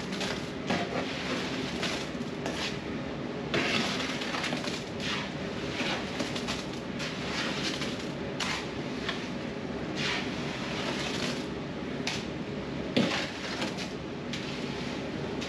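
Wet concrete scraped out of a tipped wheelbarrow and worked into a floor trench with a hand trowel: irregular rough scraping and sliding sounds, with a sharp knock near the end, over a steady low mechanical hum.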